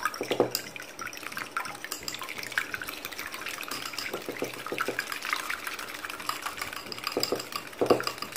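A small wire whisk beating a raw egg by hand in a ceramic bowl: fast, continuous wet sloshing with light ticks of the wires against the bowl, a little louder near the end.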